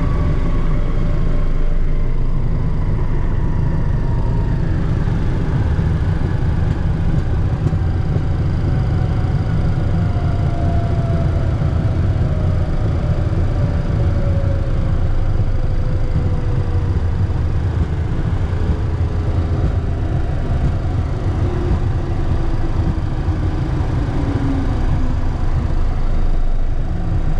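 Cockpit noise of a Cessna Citation II's twin Pratt & Whitney JT15D turbofans and airframe during the landing rollout: a loud, steady low rumble, with a whine that falls slowly in pitch as the engines spool down and the jet slows on the runway.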